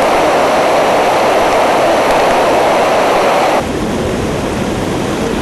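Rushing floodwater: a loud, steady rush of flowing water. About three and a half seconds in it changes abruptly to a lower, duller rush.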